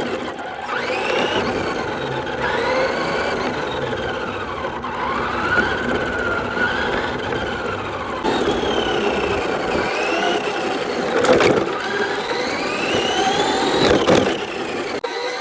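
Electric RC truck motor whining as it revs up and down in pitch again and again, with a couple of sharp clicks along the way.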